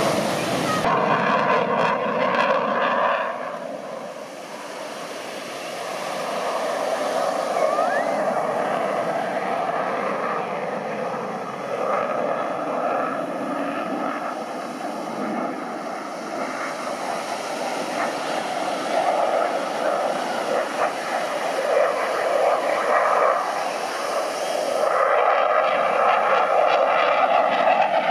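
Aircraft engine drone from an airplane overhead, fading for a while and growing louder again near the end, with wind noise mixed in.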